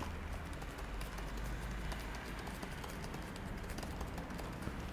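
Computer keyboard typing: a quick run of light key clicks, with a low steady hum underneath.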